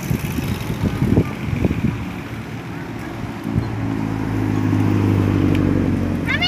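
Road traffic passing, then a vehicle engine running steadily from about halfway in, its hum growing louder.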